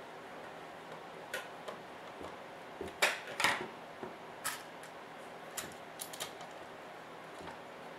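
Scattered light clicks and taps of hand tools and small parts on a workbench, as a screwdriver and tweezers are put down and parts are fitted to a model truck chassis; the loudest taps come about three seconds in.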